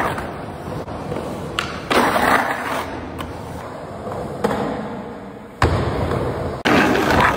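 Skateboard wheels rolling over a concrete bowl, a rushing rumble that swells and fades as the board carves the walls, with several sharp clacks from the board and trucks.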